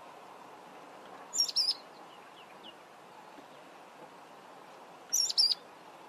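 Mousebird calling: two short, high double-note calls about four seconds apart, each a quick pair of sharp notes, with a few faint softer chirps between them.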